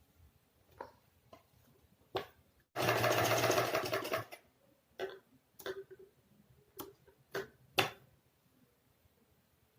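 Sewing machine running in one short burst of about a second and a half, stitching a doubled fabric strip onto a neckline, with scattered sharp clicks before and after.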